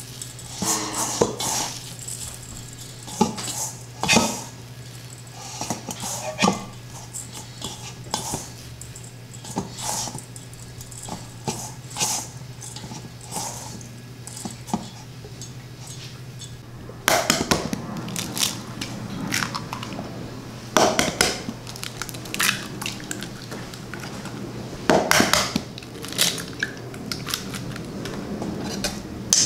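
Hands tossing coarse dry crumbs in a stainless steel bowl: irregular rustling and crunching with light knocks on the bowl, over a steady low hum. About 17 seconds in the hum stops and louder, sharper kitchen clatter and knocks take over.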